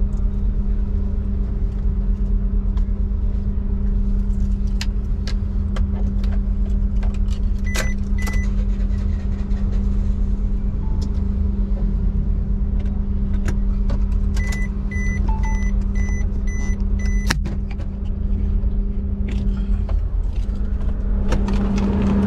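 Steady engine drone, a low rumble with a constant hum. Short high electronic beeps cut through it: two about a third of the way in, then a run of about six evenly spaced beeps later, with scattered light clicks.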